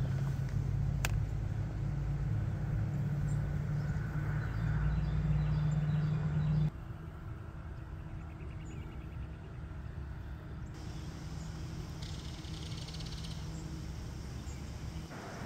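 A steady low engine hum that stops abruptly about seven seconds in, leaving a quieter outdoor background with faint high chirps.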